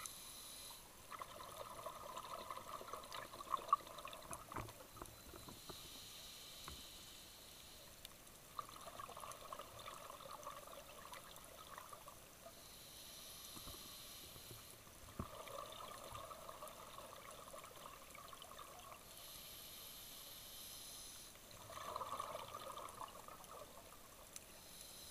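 A scuba diver breathing through a regulator underwater: a hissing inhale alternates with a bubbling exhale lasting a few seconds. About four breaths come one every six to seven seconds.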